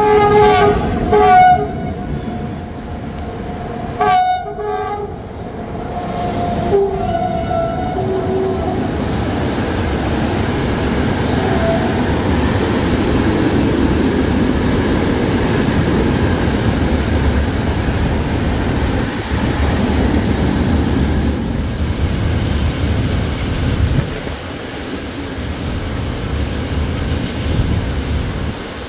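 Freight train passing through the station: the locomotive horn sounds several short blasts in the first few seconds, then the rumble of the wagons rolling past builds and holds before easing near the end.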